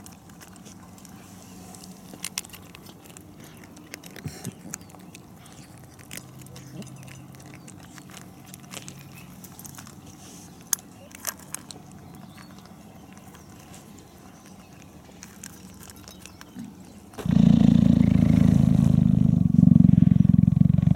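African wildcat kitten eating dry cat pellets from a steel bowl: faint crunching with scattered sharp clicks. About seventeen seconds in, a sudden loud low rumble starts and carries on.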